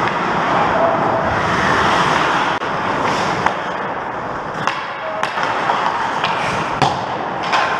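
Ice skate blades scraping and carving on rink ice, with several sharp clacks of hockey sticks and puck in the second half.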